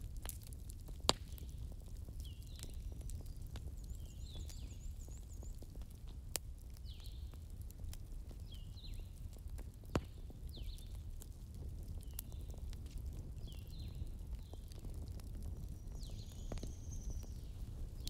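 Daytime forest-and-bonfire ambience: small birds chirping over and over, with a few sharp pops from a crackling fire and a steady low rumble underneath.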